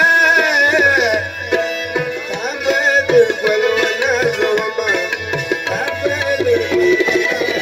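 Pashto folk music: a man singing to harmonium and tabla. The tabla keeps a steady beat under sustained harmonium tones, and the vocal line is strongest in about the first second and a half.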